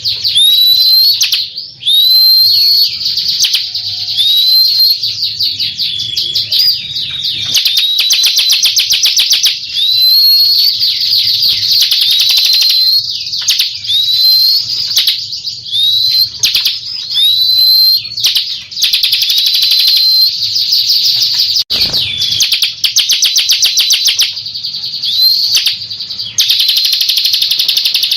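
Bar-winged prinia (Prinia familiaris) singing without pause: high, rapid buzzy trills broken by a short rising note repeated every second or so.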